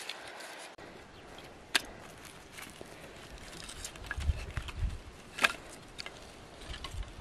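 Split firewood sticks being gathered and laid down, with a few sharp knocks of wood on wood and some dull thumps over light handling noise.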